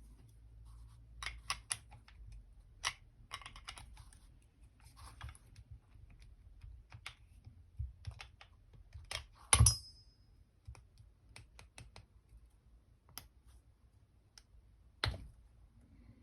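Scattered light clicks and taps of small metal parts and tools as a model glow engine's cylinder head is unscrewed and lifted off. One sharp metallic clink about ten seconds in rings briefly, and a knock comes near the end.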